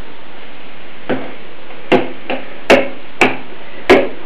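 A metal spoon knocking against the mixer's chopper jar while mashing butter inside it: about six short, sharp clinks spread irregularly over a few seconds, some with a brief ring.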